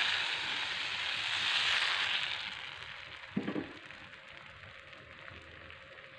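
Thin pandan crepe batter sizzling with a hiss as it hits and is swirled around a hot non-stick pan, the sizzle dying away after about two seconds. A little over three seconds in, the pan is set down on the gas stove's metal grate with a short knock. Faint crackling follows as the batter cooks and bubbles.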